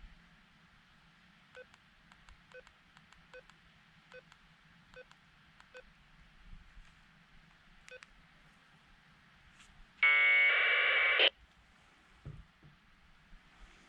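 Faint short electronic beeps, about one a second, then a loud burst of digital data tones lasting just over a second, about ten seconds in, from a dual-band handheld radio with a built-in packet modem (TNC).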